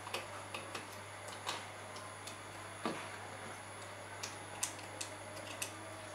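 A dozen or so light, irregular clicks and taps of a screwdriver and fingers working the screw terminals of a small amplifier board while speaker wires are fastened in, over a faint steady low hum.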